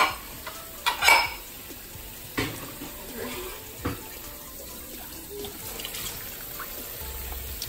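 Dishes handled at a kitchen sink: a few short clinks and knocks of a ceramic bowl and plate, the loudest about a second in, over a low steady hiss of running water.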